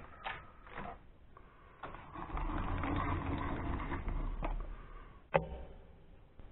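Mini lathe carriage being run back along the bed, a steady mechanical whir for about two seconds, with a few light clicks before it and a sharp metallic click near the end.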